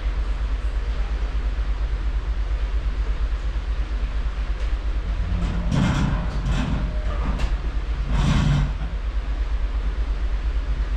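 Steady low rumble and churn of a cruise ship's propulsion and wake, heard from a stern balcony with wind on the microphone. Two brief louder bursts come near the middle.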